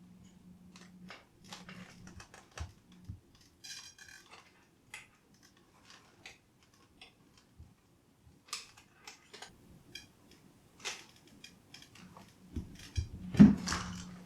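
Small clicks and taps of hands and a tool working on a foam RC plane's rudder control-rod linkage, with a faint low hum in the first few seconds and near the end, and one louder knock near the end.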